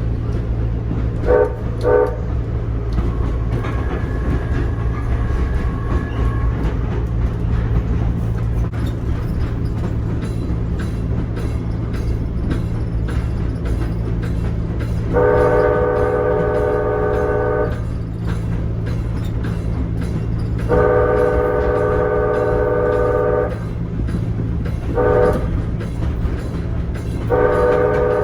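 Horn of a Nippon Sharyo P865 light rail car, its high-pitched E-K5LA horn, heard from on board while the car runs: two quick toots, then the long, long, short, long grade-crossing signal starting about halfway through, over the steady hum of the moving car.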